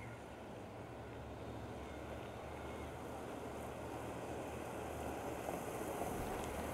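Pickup truck driving along a paved street toward the microphone, its engine and tyre noise growing steadily louder as it approaches.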